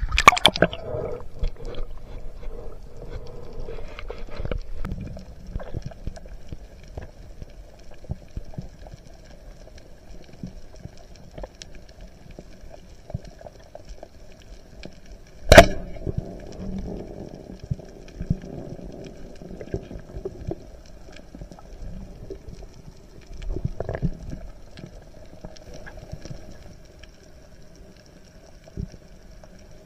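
Underwater sound on a reef heard by a diver's camera: a splash as it goes under at the start, then a low rumble with faint crackling and a steady faint hum. A single sharp, loud knock stands out about halfway through.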